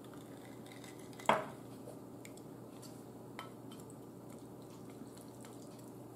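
A drinking glass set down on the table with one sharp knock about a second in, then chopsticks lightly clicking and stirring in a bowl of noodles.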